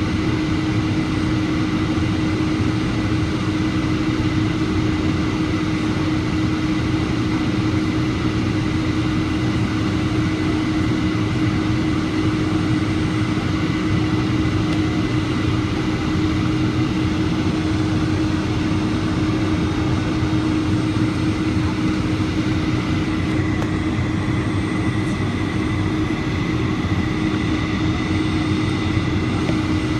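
Steady engine drone and rushing airflow of a Boeing 757-200 airliner heard inside the passenger cabin, with a constant low hum and a fainter high whine.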